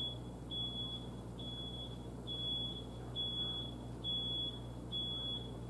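Electronic alarm beeping: a single high-pitched tone repeating evenly, about one short beep a second, six or so in a row.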